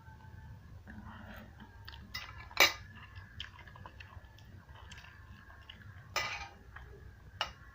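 A person eating fried noodles: chewing, with a few sharp clinks of cutlery against a plate, the loudest about two and a half seconds in.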